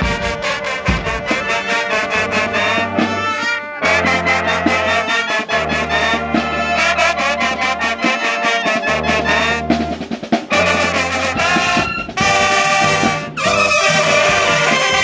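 High school marching band playing a brass-heavy tune: trumpets, trombones and saxophones over a sousaphone bass line and a steady beat. The band cuts off briefly several times, about four seconds in and again three times in the last third.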